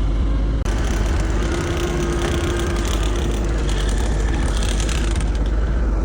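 A vehicle or machine engine running steadily, joined about half a second in by continuous mechanical rattling and clanking.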